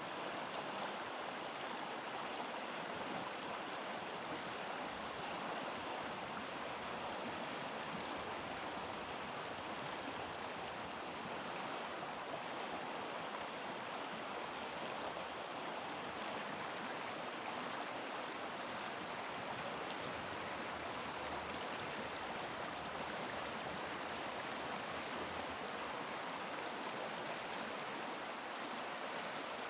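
River water flowing in winter: a steady, unbroken rush and babble of a stream.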